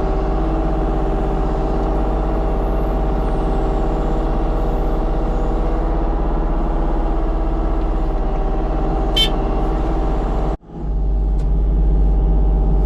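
Diesel engine of a compact construction machine running steadily under work, with a brief metallic squeak about nine seconds in. The sound cuts out for an instant about two-thirds through, then resumes a little louder.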